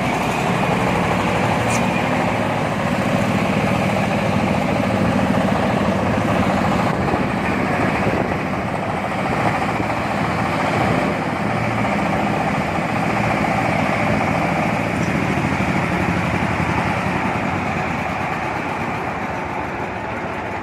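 Engine-driven corn sheller for unhusked corn, powered by a 26 HP Jiangfa engine, running steadily on its trial shelling run, with a loudness that eases slightly near the end.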